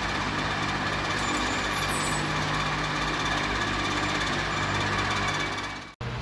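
Heavy machinery running steadily, a loud even mechanical noise with a low hum.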